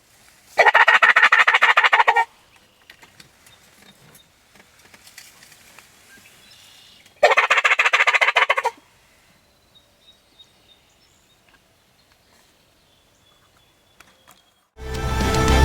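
Two loud, rapid strings of turkey calling, each about a second and a half long and about six seconds apart, with quiet between them. Music comes in near the end.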